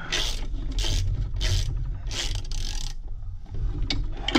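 Ratchet wrench being swung back and forth on a bolt of an engine's bellhousing: four runs of pawl clicking about two-thirds of a second apart, then a few sharper clicks near the end.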